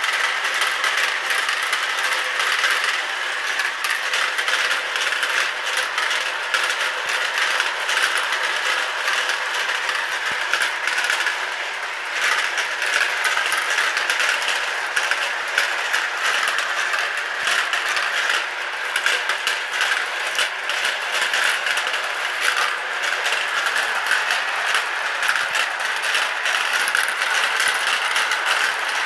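Dozens of marbles rolling and spinning around plastic funnel bowls of a toy marble run. They make a steady, dense rattle of clicks as they roll against the plastic, knock into each other and drop through the centre holes to the funnels below.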